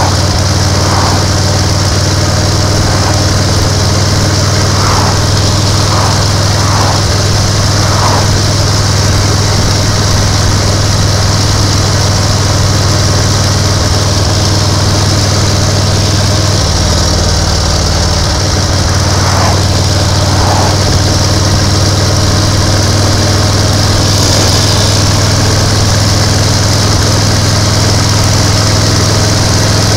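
1930 BSA 770 cc V-twin motorcycle engine running steadily under way at about 40 mph. Its note shifts for a couple of seconds about halfway through.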